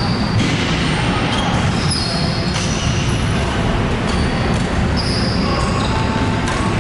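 Badminton players' shoes squeaking on the sports-hall court floor, several short high squeaks over a steady loud din in the hall.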